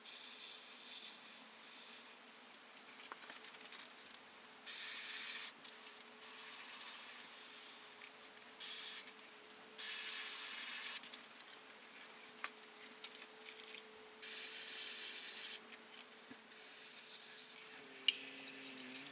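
An airbrush spraying in short bursts of air hiss, starting and stopping about seven or eight times as the trigger is pulled and released, over a faint steady hum.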